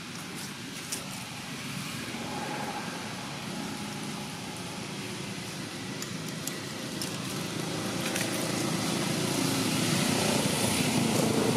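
Engine noise of a passing motor vehicle, a steady hum that grows louder over the last few seconds.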